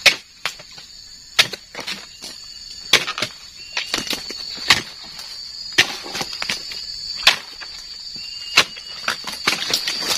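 Long-handled dodos chisel blade chopping into oil palm frond bases: sharp, irregular strikes roughly once a second, the loudest right at the start. Steady high insect drone behind.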